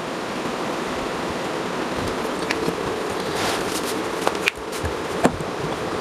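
Plastic drain hose of a semi-automatic washing machine being pushed onto its outlet, giving a few light plastic clicks and knocks, the sharpest in the second half. Under them runs a steady fan-like background hiss.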